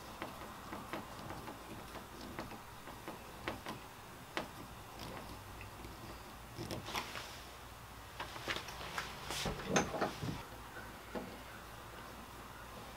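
Hand screwdriver tightening a screw through a pad eye into a kayak hull: faint, scattered small clicks and scrapes, coming thicker in the second half.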